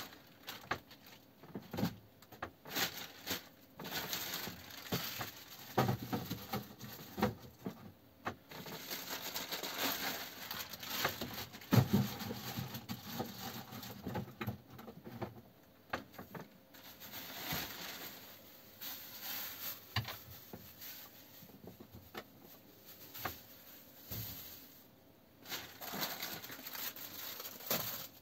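Plastic bag rustling, with irregular clicks and knocks from small objects being handled, and one louder knock about halfway through.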